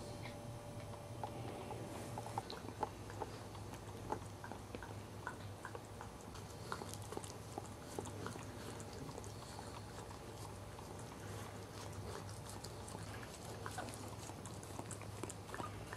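Cairn Terrier gnawing a black rubber chew toy: soft, irregular clicks and squelchy chewing, over a low steady hum.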